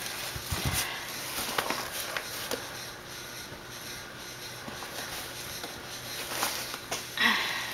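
Brown paper bag rustling and crinkling as a hand rummages through the produce inside it, with scattered small clicks and a soft bump under a second in.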